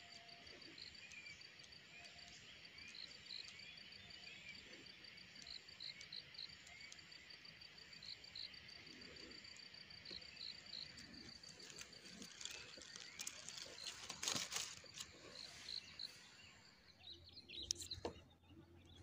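Faint insect ambience: crickets or cicadas keeping up a steady, high, pulsing trill, with a few short faint chirps over it. A brief cluster of sharper, louder clicks comes about fourteen seconds in.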